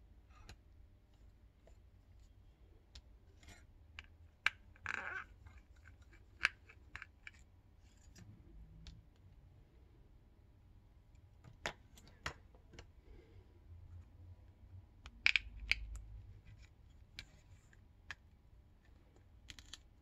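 Scattered light clicks and taps of a small screwdriver working on an opened smartphone's internal parts, with a brief scrape about five seconds in.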